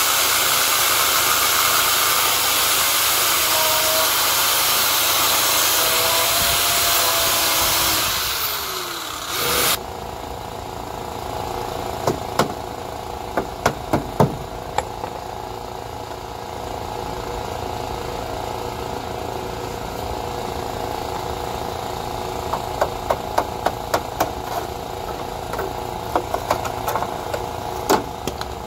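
Angle grinder grinding off the rusted outer sill steel for about eight seconds, then winding down with a falling pitch as it stops. After that comes a quieter steady hum with scattered clicks and knocks of metal.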